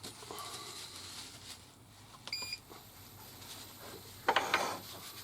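Quiet workshop handling noise with one short electronic beep a little before halfway, then a brief louder rustling clatter near the end.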